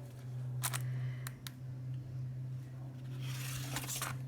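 Steady low electrical hum with a few faint clicks in the first second and a half and a brief rustle about three seconds in.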